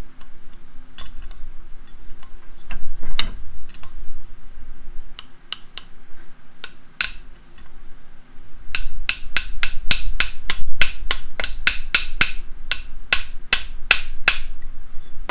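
Hammer blows on the steel of a bench vise, driving out a stuck bolt and nut sleeve. A few scattered strikes come first, then a fast steady run of about three blows a second for several seconds.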